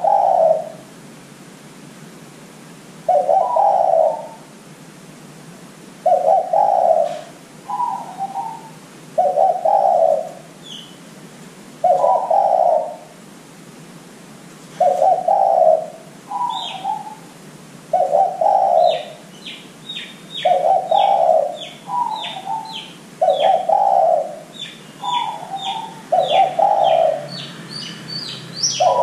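Spotted dove (derkuku) cooing, one low phrase about every three seconds, some with a short higher note tacked on. From about halfway, a small bird chirps rapidly in high short notes behind it.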